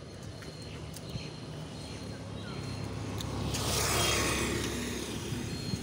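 A motor vehicle passing on the road: a low engine hum that grows, rushes to a peak about four seconds in, then fades away.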